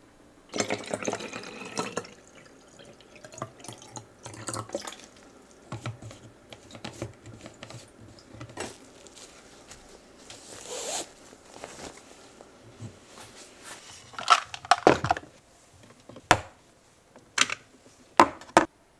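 Handling sounds: cling film crinkling around rice balls, then soft rustling of a cloth drawstring bag. In the last five seconds a run of sharp clicks and taps as small cosmetic items are set down on a desk.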